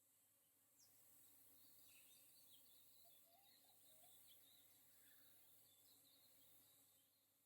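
Very faint rainforest ambience: distant birds giving quick, high chirps through the first few seconds, over a steady high insect hiss.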